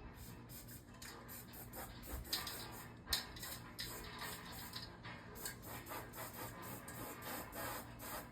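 Epoxy primer being applied to the freshly cut edge of a car's sheet-metal floor pan, heard as a quick series of short, high rasping strokes, a few each second.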